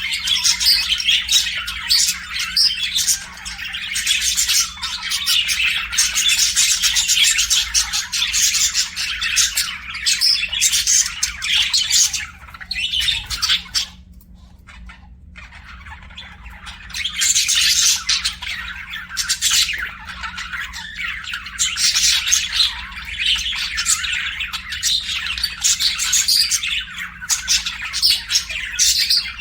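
Budgies warbling and chirping in a dense, continuous chatter, with a pause of about two seconds around the middle. A faint steady low hum runs underneath.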